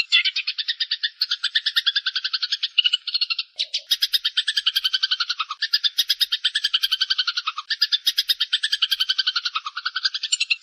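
Eurasian tree sparrows giving rapid, unbroken harsh chattering fight calls, many short notes a second, with a brief pause about three and a half seconds in.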